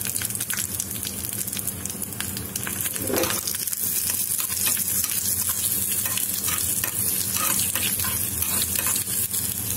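Chopped onion, curry leaves and dried red chillies sizzling in hot oil in a small non-stick pan, a steady hiss of frying for a tempering. A spoon stirs through the pan, giving short scraping clicks.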